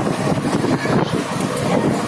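Moving passenger train heard from inside a sleeper-class coach: steady rumble and clatter of the wheels on the track, with wind buffeting the microphone.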